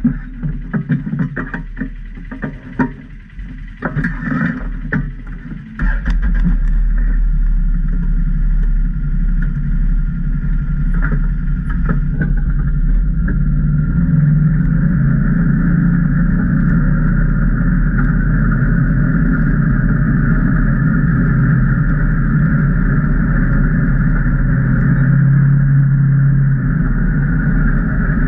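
Can-Am Maverick Trail 800 side-by-side's Rotax V-twin engine running at a steady pitch. For the first six seconds there are scattered knocks and rattles, then the engine sound comes in suddenly and stays even.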